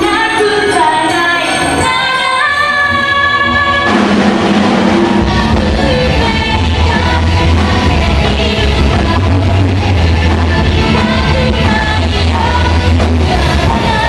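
Live rock band playing with a singer: held melodic notes at first, then about four seconds in the full band comes in with a heavy bass line under electric guitar and vocals.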